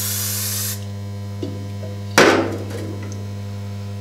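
Aerosol spray hissing as magnetic-particle suspension is sprayed onto the test bar, stopping under a second in, over a steady low electrical hum. About two seconds in, a single loud knock that rings off briefly.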